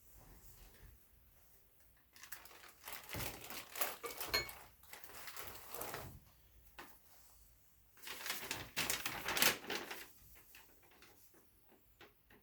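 Crinkling and rustling of material being handled, in two spells with small knocks: about two to six seconds in, and again around eight to ten seconds in.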